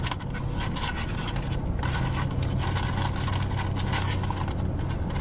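Rapid, close-up scraping and rubbing of food packaging being handled, over a steady low hum.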